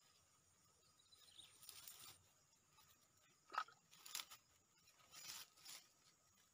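Faint rustling and crunching of dry grass stems handled by hand, in several short bursts, the sharpest one about three and a half seconds in.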